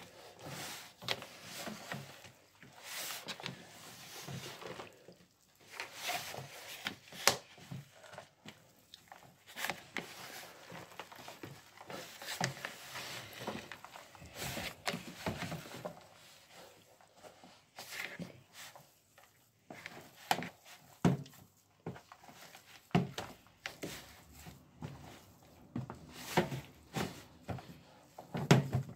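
Hands and a spoon working crumbly pastry dough in a plastic bowl: irregular rustling and scraping with short knocks against the bowl, the sound of rubbing and mixing the fat and flour for meat pie pastry.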